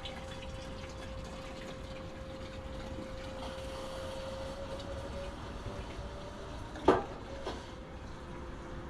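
Cheap transfer pump drawing gasoline out of a mini excavator's fuel tank, with a steady whine over the sound of fuel pouring into a gas can; the pitch of the whine wavers and drops in the second half. One sharp knock about seven seconds in.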